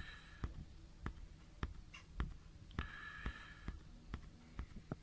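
Faint handling noise: scattered light clicks and knocks as a telescope eyepiece is turned over in the hand, with a brief faint high-pitched sound about three seconds in.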